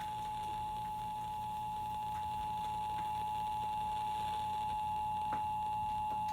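Emergency Alert System attention signal, heard over FM radio: a steady, unbroken alert tone made of two pitches sounding together (853 and 960 Hz).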